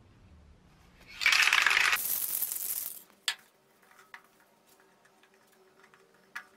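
Aerosol can of hammered-effect spray paint shaken hard for nearly two seconds, the mixing ball rattling inside. After that, a few light clicks and taps as the primed lamp shades are handled on the board.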